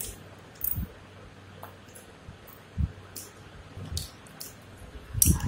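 A baby handling a steel bowl and spoon while eating from it face-first: scattered light clicks and taps, with a few soft low thumps. The loudest knock comes near the end.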